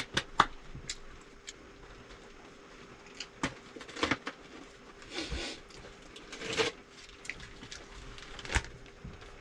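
Scattered clicks, knocks and brief rustles of dishes and plastic food containers being handled at a table after a meal. A faint steady hum runs underneath.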